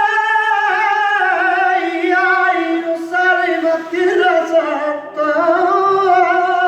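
A man singing a flamenco fandango: one long held line with a wavering, ornamented pitch, broken once about five seconds in.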